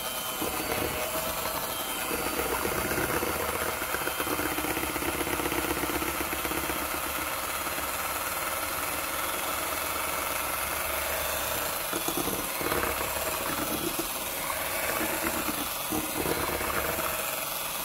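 Electric hand mixer running steadily, its beaters whirring through thick creamed butter, sugar and egg batter in a glass bowl.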